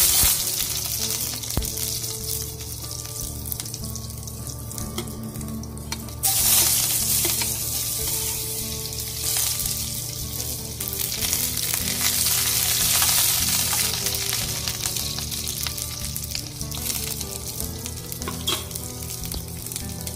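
Chopped onion and green chillies sizzling in hot oil in a small saucepan. The sizzle jumps suddenly louder about six seconds in, then slowly eases.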